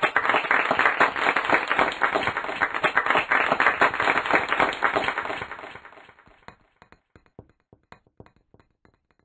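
Applause: dense clapping that thins out after about five seconds into a few scattered claps, then stops.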